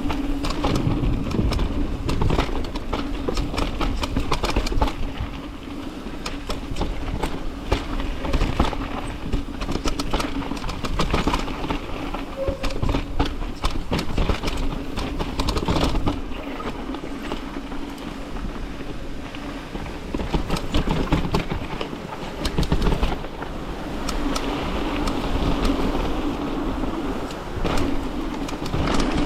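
Mountain bike descending a dirt jump trail at speed: tyres rolling over dirt and gravel, the chain and frame rattling with many sharp knocks, wind rumbling on the microphone, and a steady buzz that comes and goes.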